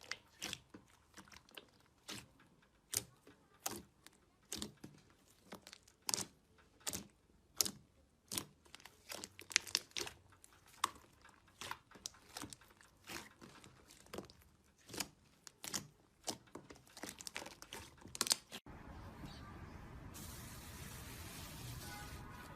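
Slime being squeezed and poked by hand, giving sharp pops and crackles about once or twice a second. About three-quarters of the way through the pops stop and a steady hiss takes over.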